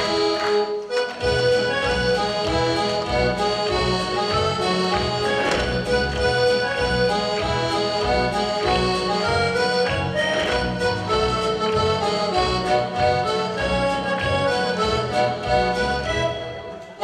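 Accordion-led traditional dance music with a steady bass beat, the tune for a Kirchweih-style folk couple dance. It dips briefly about a second in and fades near the end.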